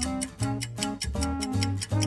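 Background music: short repeating melody notes over a strong bass line, with a quick, steady ticking beat.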